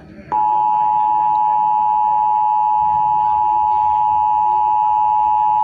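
Emergency Alert System attention signal: the steady two-tone alert (853 and 960 Hz sounded together) cuts in sharply about a third of a second in and holds without change.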